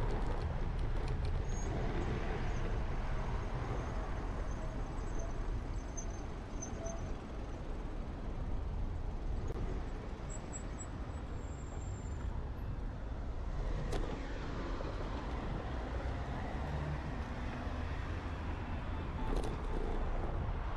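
Steady road traffic noise, a low rumbling hiss, with a few faint high chirps in the first half.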